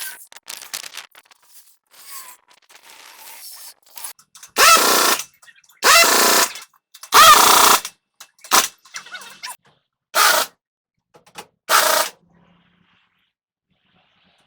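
A power tool run in five short, loud bursts, each lasting half a second to a second and a half, with lighter clinks and scrapes between them.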